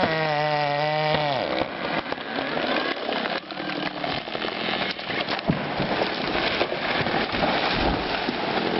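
Chainsaw engine running, then dropping in pitch as the throttle is released about a second and a half in. A felled tree then breaks and comes down, with a long stretch of dense crackling and sharp snapping of wood and branches.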